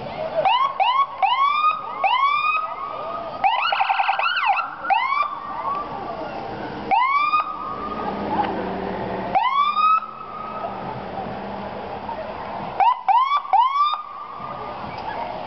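Police car sirens chirping in short rising whoops, often two or three in quick succession, with a fast warbling burst about four seconds in.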